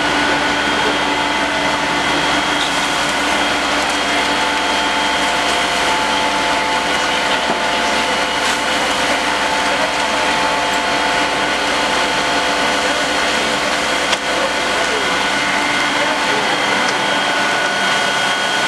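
Fire engine pumps and engines running steadily at the fire ground: a constant multi-tone whine over a dense rushing noise, with a single brief knock about fourteen seconds in.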